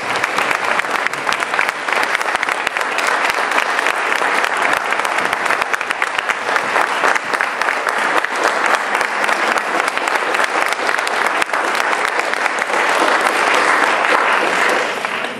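Audience clapping, a steady patter of many hands that swells a little near the end and then starts to die away.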